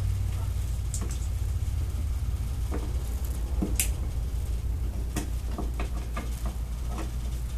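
Power cable connectors being handled and plugged into an LED display cabinet's power-out socket: scattered small clicks and knocks, one sharper click about four seconds in, over a steady low rumble.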